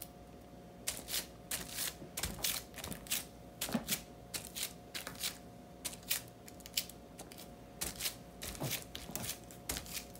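Hands rubbing and pressing clear hotfix transfer tape down over a rhinestone template, the plastic film crinkling and rustling in quick, irregular strokes from about a second in.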